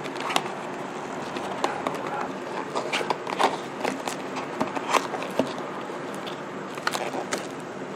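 Packaging being handled while a drill press is unboxed: irregular clicks, crackles and rustles over a steady low hum.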